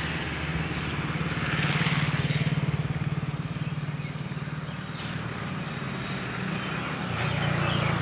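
Road traffic: a motor vehicle's engine running with a steady low hum, swelling in loudness around two seconds in and again near the end as vehicles pass.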